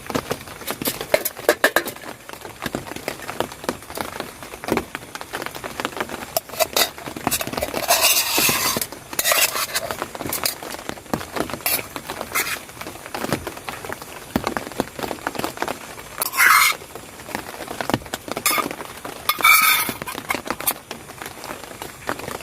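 Metal utensils clinking and scraping against a cooking pot, with a few louder scrapes, over a steady patter of rain.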